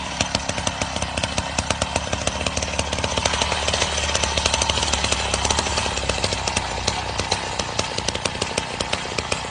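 A small motor running with a steady low hum and a fast, irregular clicking rattle.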